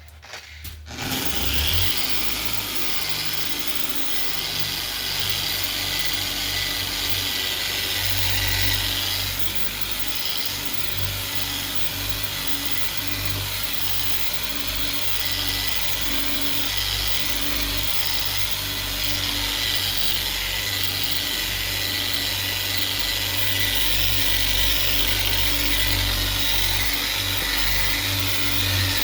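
Electric dual-action orbital sander with a soft pad, on speed setting 3, sanding guide coat off body filler and primer on a car door panel. It starts up about a second in and runs steadily, with a thin whine over the rasp of the sandpaper.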